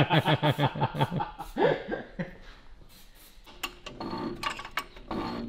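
A man laughing in short rapid pulses for about the first second and a half. Later, fainter metallic clicking and scraping as the threaded lower spring collar on a front coilover shock is turned to raise the ride height.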